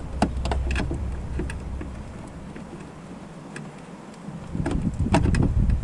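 Scattered clicks and knocks of hand tools and plastic parts being handled while refitting a car headlight unit, over a low rumble that fades out for about a second midway and then returns.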